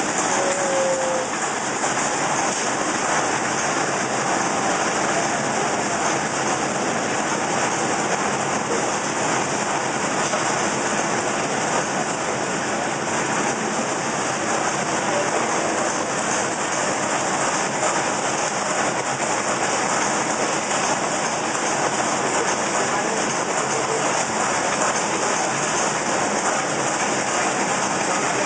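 Puffed-snack extrusion line machinery running: a steady, even noise with no distinct rhythm or single event.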